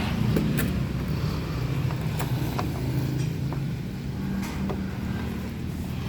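Honda BR-V's engine idling with a steady low hum, with a few light metallic clicks and taps of work on the car.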